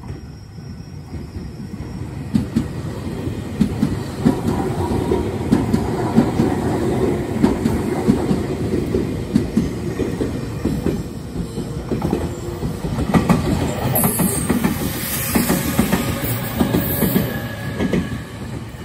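Meitetsu 3500 series electric train passing close by, its wheels clacking over the rail joints, growing louder as it draws near. A high squeal joins in for the last few seconds.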